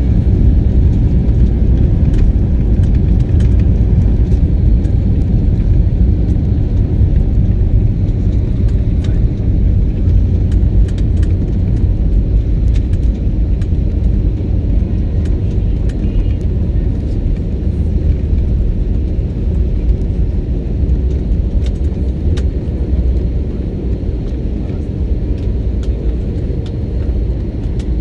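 Cabin noise of an Airbus A320-family airliner on its landing roll: a heavy, steady low rumble from the wheels on the runway and the engines, with scattered light rattles and clicks, easing toward the end as the aircraft slows.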